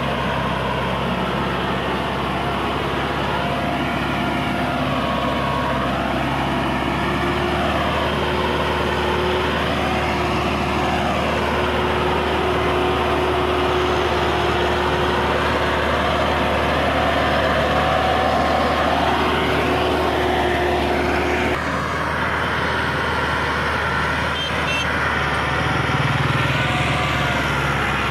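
Massey Ferguson 375 tractor's four-cylinder diesel engine running steadily under heavy load while pulling a heavily loaded sugarcane trolley.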